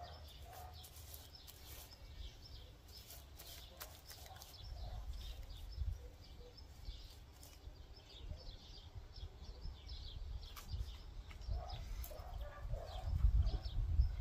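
Small birds chirping repeatedly in the background, with a low rumble that grows louder near the end.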